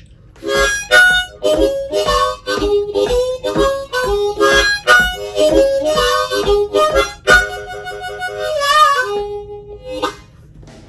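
Diatonic harmonica playing a short blues phrase of quick notes and chords, with a wavering, bent passage near the end before it stops.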